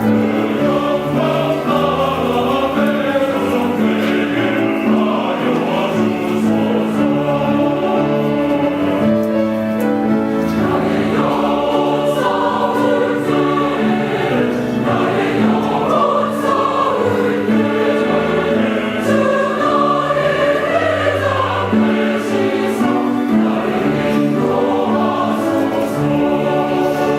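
Church choir singing a sacred anthem in full voice, several parts together over held low notes.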